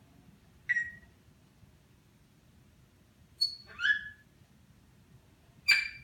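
African grey parrot giving short whistles and chirps: one about a second in, a quick pair of notes around the middle, and a louder one near the end.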